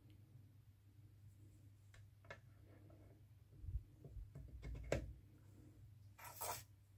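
Small metal clicks and light knocks as a lathe tool holder is seated on a quick-change tool post, with a short scraping rasp near the end. A faint low hum runs underneath.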